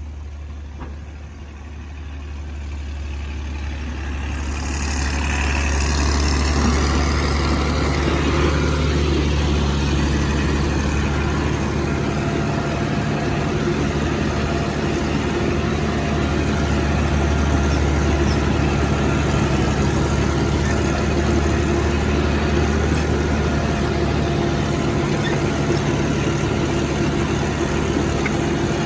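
Heavy diesel engines of trucks and earthmoving machines running: a low, steady engine note that grows louder over the first five seconds or so and then holds.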